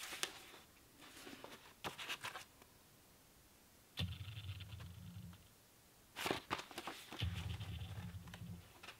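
Paper rustling and soft clicks as a manga volume is handled and its pages are turned. Twice, a low steady hum comes on for about a second.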